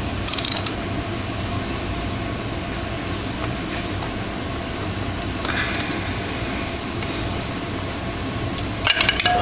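Ratchet wrench clicking briefly while tightening a rear sprocket bolt, over a steady background rumble, with a few sharp metal clicks and clinks near the end.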